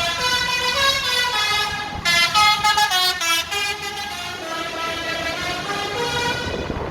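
Telolet horn of an ALS 103 intercity bus: a set of musical air horns playing a tune, several tones sounding together and stepping from note to note, busiest and loudest a couple of seconds in.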